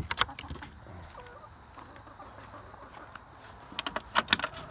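Hens clucking quietly, with a cluster of sharp clicks and knocks at the start and another about four seconds in as the wooden coop is handled.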